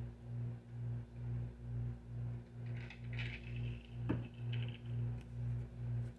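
A low, even pulsing hum, about two pulses a second, under a steady higher hum. A faint tap comes about four seconds in, with light rustles just before it.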